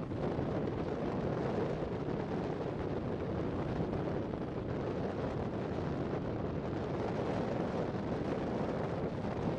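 Steady wind blowing over the microphone: an even rushing with no separate events.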